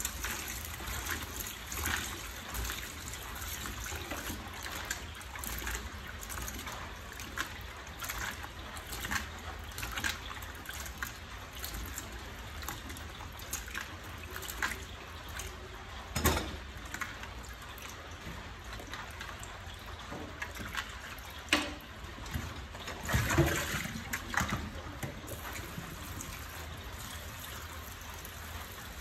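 A tap runs steadily into a plastic basin of water while hands swish and scrub cut breadfruit chunks, making frequent small splashes and knocks. A few louder splashes and clatters come in the second half, the biggest cluster a little past two-thirds of the way through.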